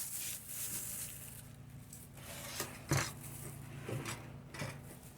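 Polythene bag rustling while mashed plantain is scooped into it, with a few short knocks of a kitchen utensil, the loudest about three seconds in.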